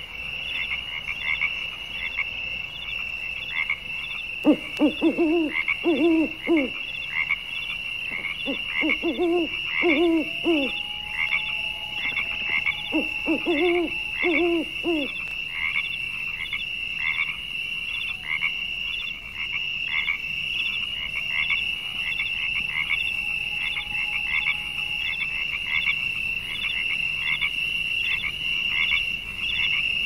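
Frog chorus: a steady high-pitched pulsing trill with three short bouts of deeper croaking calls in the first half.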